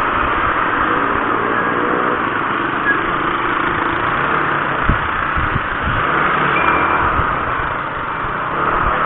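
A vehicle running along the road, its engine going steadily under a constant rush of wind and road noise, with a brief low thump about five seconds in.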